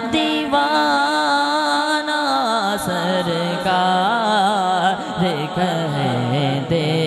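A male naat reciter singing into a microphone, holding a long wavering, ornamented note with no words, over a steady lower drone that steps down in pitch about halfway through.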